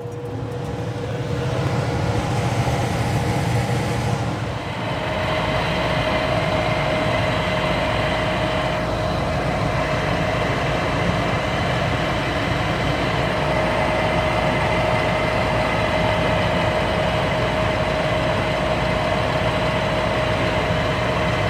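Lennox gas furnace starting up and running, a steady mechanical hum that grows louder, with a steady whine joining about five seconds in.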